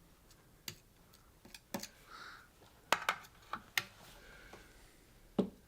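About eight short, sharp clicks and taps at irregular intervals, with a soft brief rustle about two seconds in: small items being handled on a workbench.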